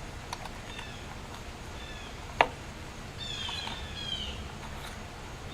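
Birds chirping: a series of short, falling whistled notes, several in quick succession past the halfway point, with one sharp click about two and a half seconds in.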